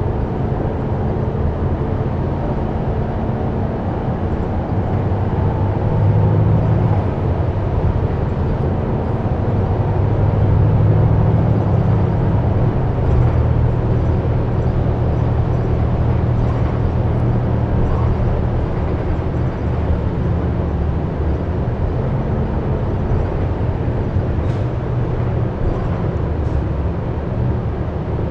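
Cabin noise of a 2004 Gillig Advantage transit bus under way: a steady low engine drone with road noise, swelling about six seconds in and again around ten to twelve seconds in.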